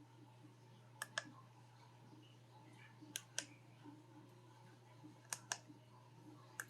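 Faint sharp clicks from handling, coming in pairs about a fifth of a second apart three times and once more near the end, over a steady low hum.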